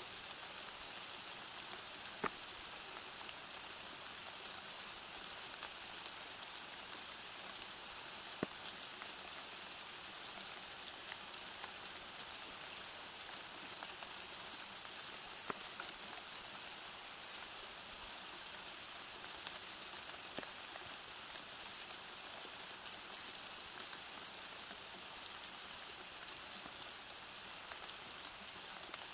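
Steady rain falling, an even hiss with single drops tapping a little louder now and then.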